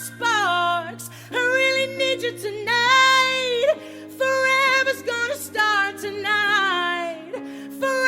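Music: a female voice singing a melody over a steady held accompaniment.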